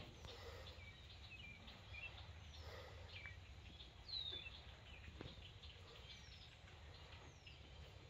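Faint wild birdsong: scattered chirps and a few short downward-sliding whistles, the clearest about four seconds in, over a quiet low outdoor background rumble.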